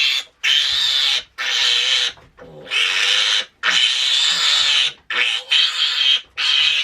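Piglet screaming while held for processing: a run of about eight loud, shrill squeals, each half a second to a second long, with short breaths between.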